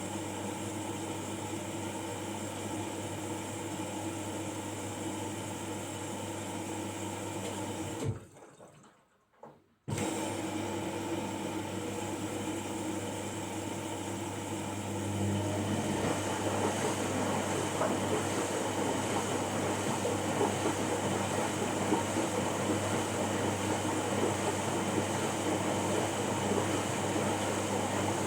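Washing machine taking in water early in its cycle: a steady hum with rushing water that grows louder about halfway through. The sound cuts out for about two seconds near a third of the way in.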